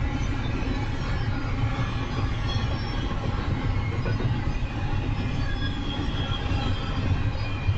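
Double-stack intermodal container train rolling past: a steady rumble of steel wheels on rail, with faint high wheel squeal.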